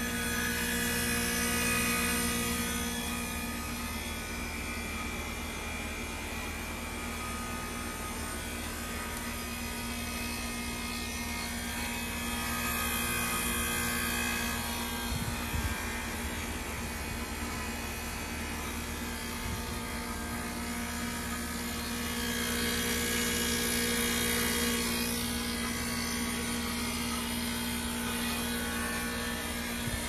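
Heat pump outdoor unit in its defrost cycle: the compressor hums steadily while refrigerant hiss swells and fades three times.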